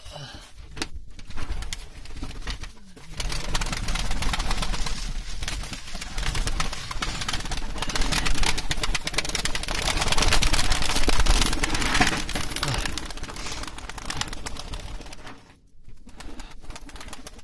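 Domestic pigeons cooing in their shed, under a loud rushing noise that starts about three seconds in and stops a couple of seconds before the end.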